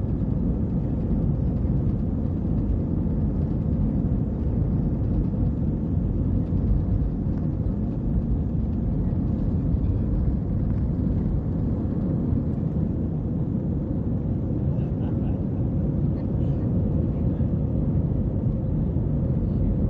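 Airbus A320 jet engines at takeoff thrust, heard from inside the cabin over the wing: a steady low rumble through the takeoff roll and lift-off.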